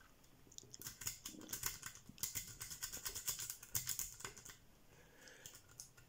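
Faint, rapid metallic clicking of a lock-pick rake being worked backwards and forwards in the keyway of a cross (cruciform) lock cylinder under turning tension. The clicking starts about a second in and stops about a second before the end.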